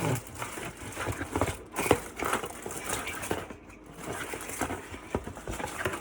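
Handling noise: irregular clicks and rustling as the LED light strip's plastic connector and wires are handled.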